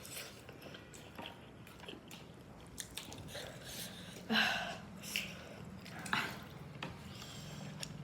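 Someone chewing and biting into chicken momos: soft wet mouth sounds and small clicks, with three short louder bursts about halfway through.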